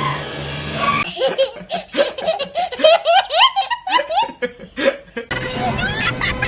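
High-pitched cartoon laughter: a quick run of short, rising 'ha' bursts lasting about four seconds. Background music plays before it and comes back near the end.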